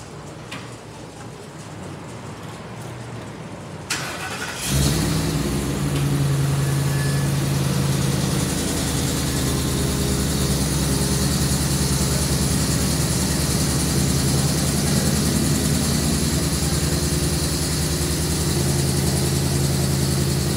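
Ambulance engine starting about five seconds in, after a single click, then idling steadily with a steady high hiss over its low hum.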